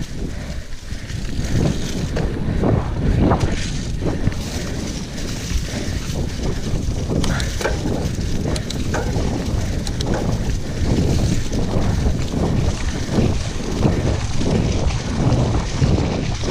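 Wind rushing over the camera microphone as a Cube Reaction GTC mountain bike rolls fast along a leaf-covered dirt singletrack. The tyres run over leaves and dirt, and frequent knocks and rattles come from the bike jolting over bumps.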